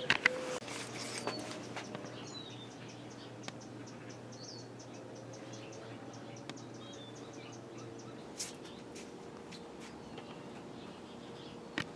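Small birds chirping, with a fast even series of high ticks behind them, over a low steady hum that stops about two-thirds of the way through. A few sharp clicks, the last one just before the end.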